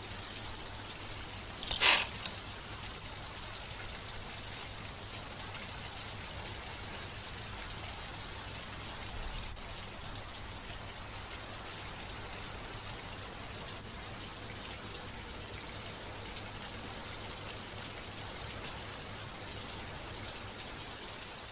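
Steady background hiss with a low hum underneath, broken once about two seconds in by a brief loud noise.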